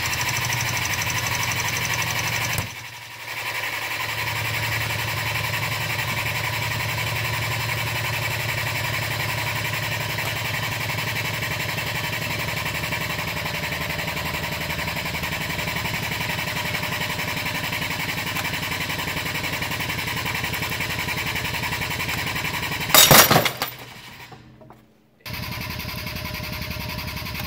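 Air-driven hydraulic foot pump running with a rapid pulse as it pumps oil into a hydraulic cylinder, pausing briefly about three seconds in. Near the end the 10 mm welded climbing bolt under test snaps with a single sharp bang at about 30 kN, and the pumping stops.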